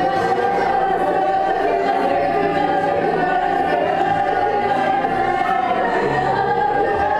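Choir singing, holding long, steady notes.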